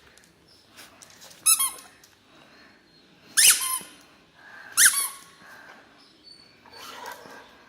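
Squeaky dog toy squeezed in a Labrador's mouth, giving three short high-pitched squeaks, the last two sliding down in pitch.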